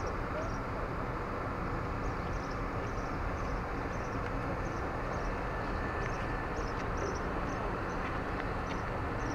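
DR1A diesel multiple unit running steadily at low speed, its engine and running gear a constant rumble heard through an open carriage window. Short, faint high chirps recur now and then over it.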